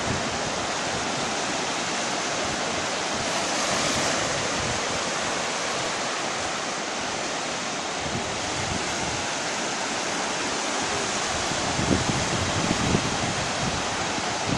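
Black Sea surf breaking on the shore as a steady wash of waves, swelling briefly about four seconds in. Near the end, wind buffets the microphone with a few low thumps.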